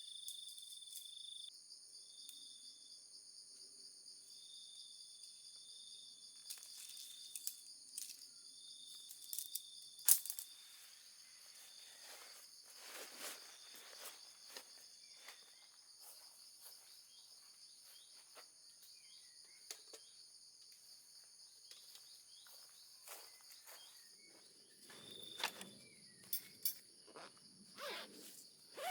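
Faint outdoor insect chorus: a steady high-pitched buzz throughout, with a repeated chirping trill in short on-off phrases over the first half. Scattered light clicks and rustles, with one sharp click about ten seconds in and a burst of rustling near the end.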